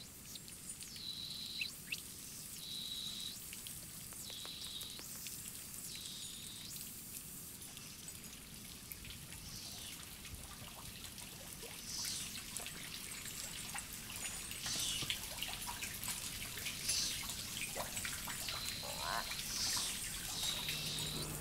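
Garden fountain water trickling and dripping into a pond. Over it, a high chirping call repeats about every second and a half for the first ten seconds or so, and short bird calls follow later.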